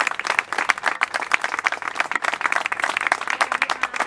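A small crowd applauding: many hands clapping at once in a dense, irregular patter.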